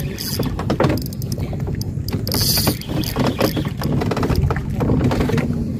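Small fishing boat on choppy water: a steady low rumble of water against the hull, with scattered knocks and clicks and a brief hiss about two and a half seconds in.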